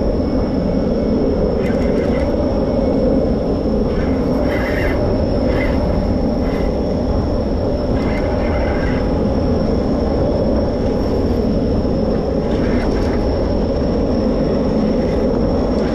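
Steady rumbling drone of the boat's engines running, with a thin steady high whine over it and a few short, higher-pitched flurries.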